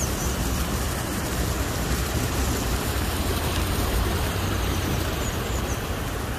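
Wind buffeting the phone's microphone: a steady, deep rumbling noise. A quick run of faint, high chirps from a small bird comes about five seconds in.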